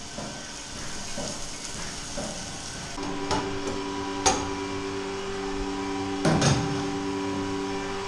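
Sharp metal clanks from handling a stainless steel bulk milk tank's lid and fittings: one a little after three seconds, the loudest just after four seconds, and a quick pair past six seconds. A steady machine hum starts about three seconds in.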